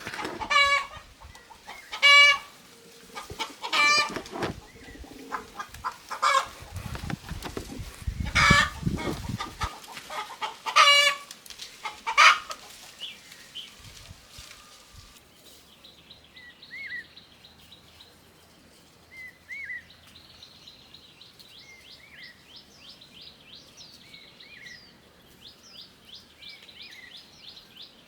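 Chickens squawking and clucking, loud calls repeating every second or two, with a low rustling burst about a third of the way in. About halfway through the hens fall quiet, leaving fainter small-bird chirps with short rising calls every few seconds.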